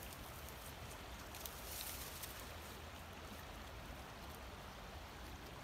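Faint, steady outdoor background hiss, with a few soft high rustles about two seconds in.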